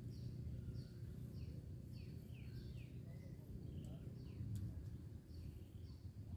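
A bird calling over and over with short, high, falling chirps, about two a second, over a low steady rumble of outdoor noise. There is one faint click about four and a half seconds in.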